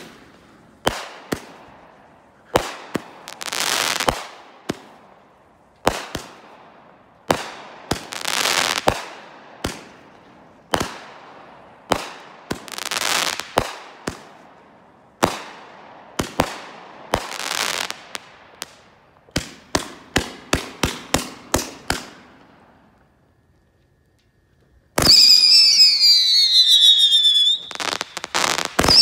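A 35-shot High Rise XL consumer fireworks cake firing. A run of sharp launch thumps, each followed by about a second of hiss from the bursting shell, speeds up into a quick volley about two-thirds of the way through. After a short pause come loud whistling shots whose pitch wavers up and down.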